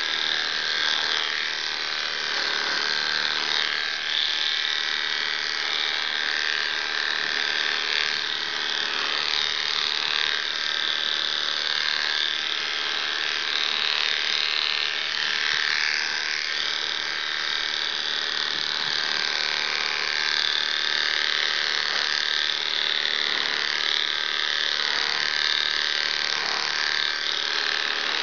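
Electric dog grooming clippers running with a steady buzzing hum as they clip a wet terrier coat.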